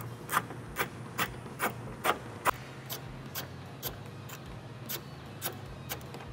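Hand ratchet with a 10 mm socket clicking in short, even strokes, about two clicks a second, while loosening a headlight mounting bolt; the clicks grow fainter in the second half.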